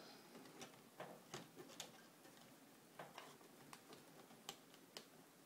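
Faint, irregular small clicks and taps from hands handling a laptop's replacement LCD panel and its plastic bezel, about a dozen in five seconds.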